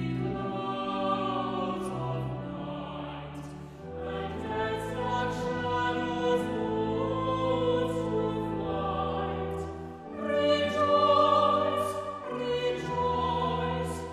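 Slow classical music: a choir singing held phrases over orchestral accompaniment, swelling louder about ten seconds in.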